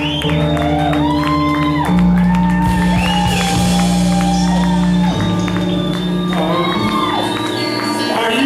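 Loud live music over a venue sound system: a backing track with a held bass note that shifts about two seconds in and again just after five seconds, a gliding melodic line on top, and shouts from the room.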